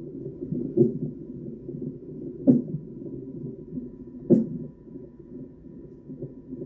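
A baby hiccupping three times, about every two seconds, heard through a baby monitor over a steady low, muffled background noise.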